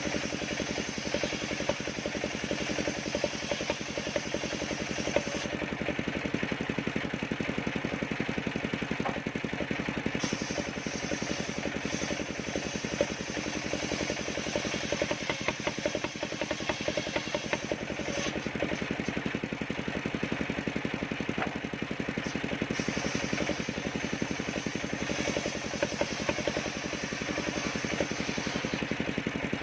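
Small engine of a mobile circular-saw rig running steadily at a constant speed.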